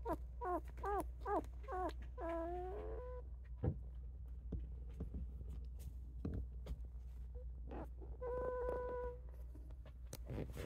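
Newborn rough collie puppies squeaking: a quick string of short rising-and-falling squeaks in the first two seconds runs into a longer whine. About eight seconds in comes one steady whine lasting about a second, among faint rustles and soft knocks as the litter shifts.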